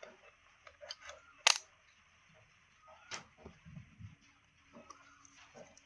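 A few sharp clicks and knocks, the loudest about a second and a half in and another about three seconds in, with some softer low thuds between them.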